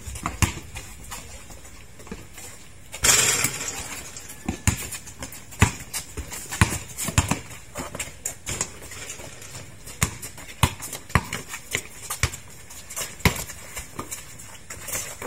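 Irregular thuds and slaps of a basketball and players' feet on a concrete court during play, with a brief rush of noise about three seconds in.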